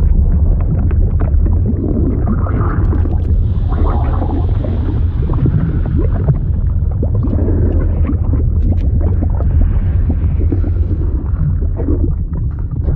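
Liquid sound effect: a deep, steady rumble with irregular bubbling and gurgling pops over it, like being under water.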